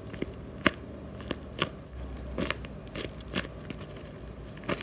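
Homemade paper squishy stuffed with plastic trash bags crinkling as it is squeezed in the hands, with about eight short, sharp crackles spread irregularly.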